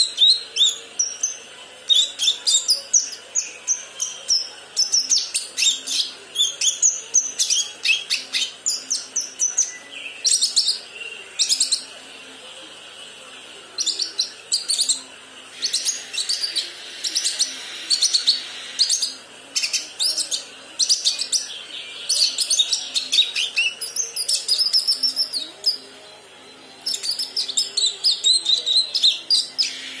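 Young kinoi (leafbird) practising its song in a cage: runs of rapid, high chirps and twittering notes with quick sweeps in pitch, broken by short pauses. This is the broken, still-forming song of a juvenile learning its calls.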